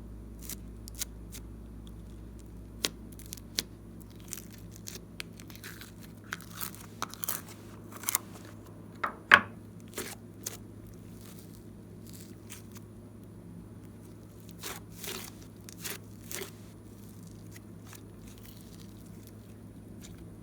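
Hands working glossy slime and its add-ins: scattered sharp clicks and crackles with a few short scrapes. The loudest click comes about nine seconds in, and it goes quieter near the end.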